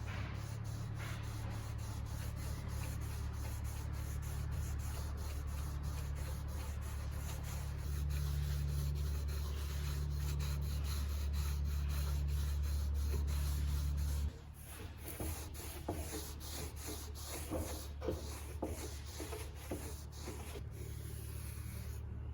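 Sanding and rubbing on a surface, with a steady low hum under it that stops abruptly about fourteen seconds in, after which irregular scratchy rubbing strokes continue.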